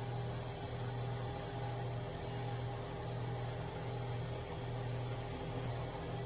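Hot air brush (hair dryer brush) running: a steady rush of blown air over a low motor hum, with no change in speed.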